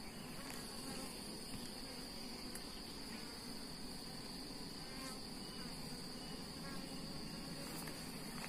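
A colony of wild honeybees buzzing steadily at their nest, with a steady high-pitched insect whine over the buzz.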